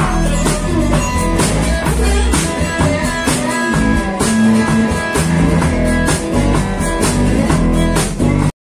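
Blues-rock trio playing an instrumental passage without vocals: Weissenborn slide guitar, bass and drum kit, with steady drum and cymbal hits. The music cuts off abruptly near the end.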